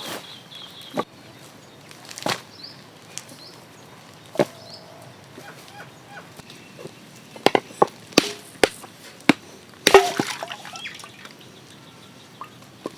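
Irregular sharp chopping knocks of a blade striking coconuts, several in quick succession partway through, the loudest near the end, with small birds chirping.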